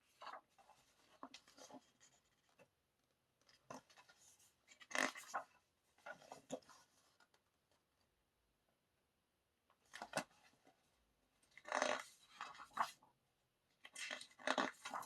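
Pages of an album photobook being turned and handled: irregular short bursts of paper rustling and sliding, with a few sharper flicks.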